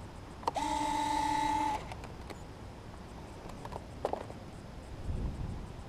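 A click, then a small electric motor whirring at one steady pitch for just over a second before stopping, with a much shorter whir about four seconds in: the RC A-10's electric landing-gear retracts being cycled to test the bent nose gear.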